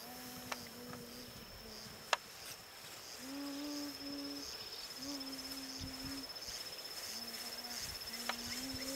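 An insect trilling in one thin, steady high-pitched tone that pulses finely throughout. Over it come several low, held humming notes that step up and down in pitch, and a couple of faint clicks.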